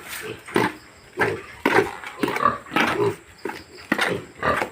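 Pigs grunting in a pen, many short grunts overlapping, several a second.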